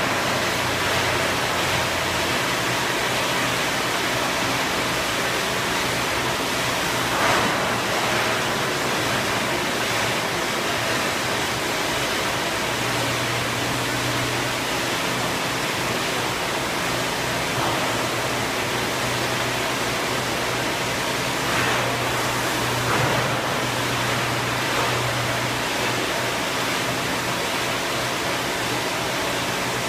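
Large injection molding machine and workshop machinery running: an even, hiss-like machine noise, with a low hum that comes in about halfway through and fades near the end.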